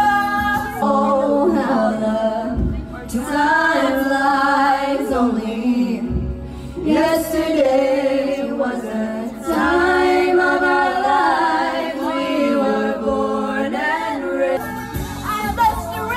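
Young women singing karaoke into handheld microphones: loud, held notes sung in phrases with short breaks between them.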